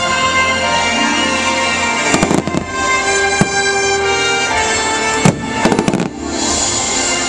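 Aerial fireworks going off over steadily playing show music: a cluster of sharp bangs about two seconds in, a single bang a second later, and a quick run of bangs around five to six seconds in, the loudest about five seconds in.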